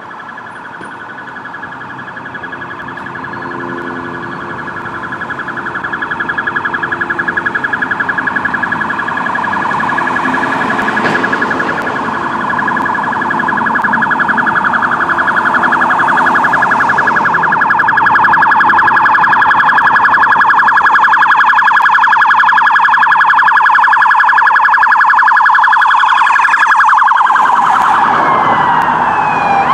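Electronic sirens of an approaching emergency-vehicle convoy, a rapidly pulsing two-tone wail that grows steadily louder as the vehicles near. About 27 seconds in the pitch drops as they pass, and near the end another siren starts winding up in pitch.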